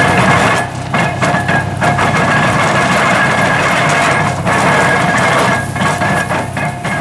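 IHC (International Harvester) hay baler running, a steady loud mechanical clatter over an engine drone, with a thin steady whine on top.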